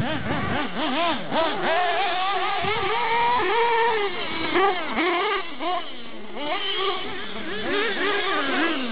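Radio-controlled off-road car's small nitro glow engine running at high revs, its pitch rising and falling continuously as the throttle is worked.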